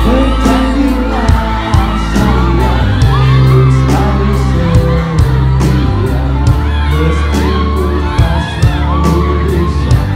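Pop band music at full volume, with drums, heavy bass and a voice singing, and a crowd whooping and shouting over it.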